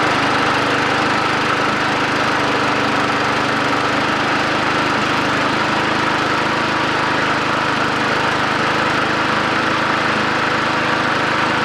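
Hayter petrol lawn mower engine running steadily after a cold start. Its stuck carburettor diaphragm has freed up with priming, without a strip-down.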